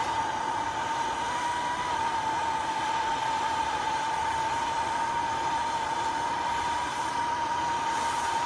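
Small electric motor of a handheld power tool running steadily at constant speed with a high, even whine, then cutting off abruptly.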